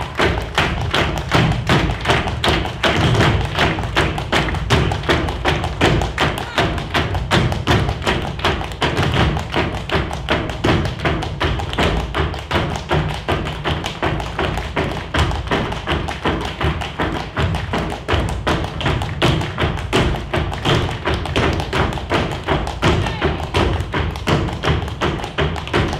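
Dancers' shoes striking a wooden stage in fast, rhythmic footwork, about three strong beats a second with quicker taps between, over music.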